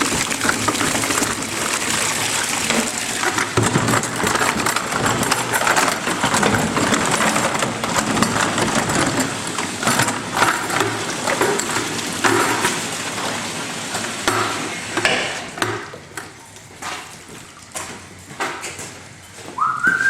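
Calf buckets being scrubbed in a wash sink: steady scrubbing and water noise with the knock and clatter of buckets against each other and the sink. About fifteen seconds in it drops to scattered knocks as the buckets are handled.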